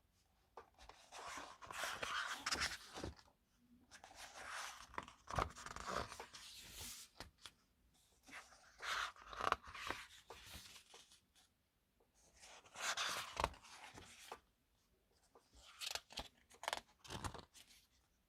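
Pages of a K-pop album's photobook being turned and handled, the paper rustling and sliding with small sharp snaps, in about five separate turns.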